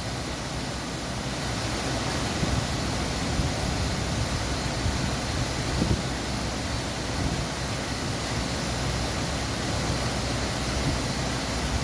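Okuma LB35 CNC lathe running under power: a steady mechanical noise with a few faint knocks.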